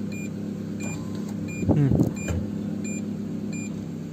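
Aftermarket reversing parking sensor buzzer beeping in short, evenly spaced tones, about two a second, over the steady idle of a Hyundai Santro's engine. The beeps warn of an obstacle close behind the reversing car. A brief, louder gliding sound comes about halfway through.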